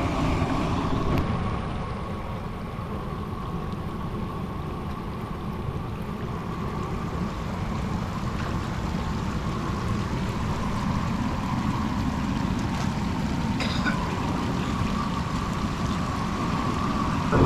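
Mountain creek running over rocks, a steady rushing noise.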